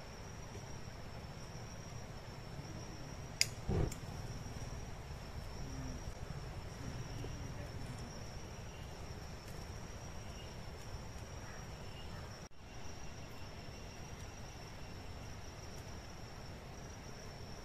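Jungle insects holding one steady, high-pitched drone over a low background hiss. About three and a half seconds in there is a sharp click, then a knock.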